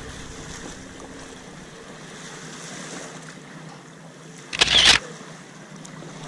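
Steady hiss of wind and lakeshore water, broken about four and a half seconds in by one loud, half-second burst of noise.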